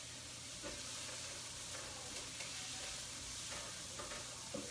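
Chopped garlic and onion sautéing in hot olive oil in a frying pan, a steady sizzle.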